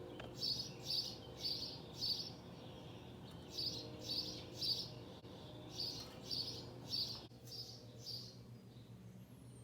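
A bird chirping faintly, short chirps repeated about twice a second in runs of three to five with short pauses between runs.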